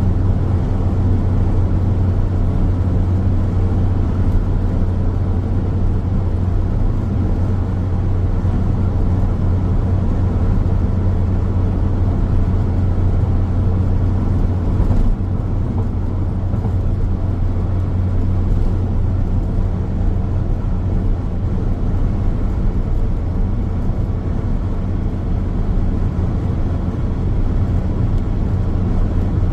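A car driving steadily on a highway: an even, low road and tyre drone with engine hum, unchanging throughout.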